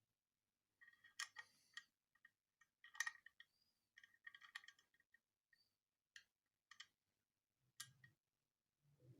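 Metal parts of a Blow F92 blank pistol clicking and clinking as it is handled and worked on, in short irregular clusters of light, ringing clicks. A couple of soft low knocks come near the end.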